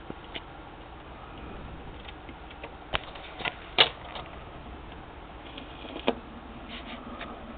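RCA 45-EY-2 45 rpm record changer cycling to drop the next single. Its mechanism gives a series of clicks and clunks, the loudest about four seconds in, over a steady low background hum.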